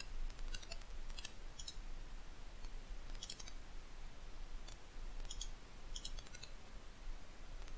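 Quiet computer mouse clicks, a few scattered pairs a second or two apart, as the button is pressed and released.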